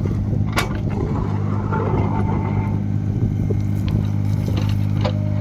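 Yanmar diesel engine of a LiuGong 9027F mini excavator running steadily at an even speed, with a sharp click about half a second in.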